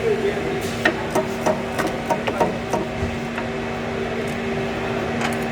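Steady workshop hum with a scatter of sharp clicks and knocks from hand work on the vehicle, most of them in the first three seconds.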